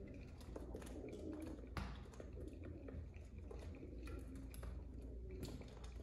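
Feral pigeons feeding and jostling on a windowsill, heard through the window glass: many small taps and scuffles of beaks on seed bowls and feet and wings on the sill, with low cooing twice.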